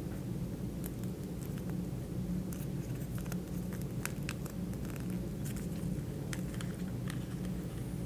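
Origami paper crackling and rustling in small sharp ticks as fingers fold and crease it, over a steady low hum.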